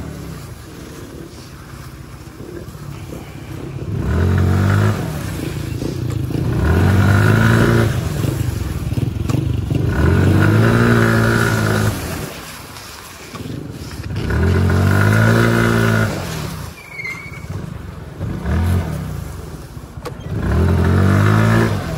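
Small motorcycle engine revving up and easing off about six times, each swell rising and then falling in pitch over a second or two.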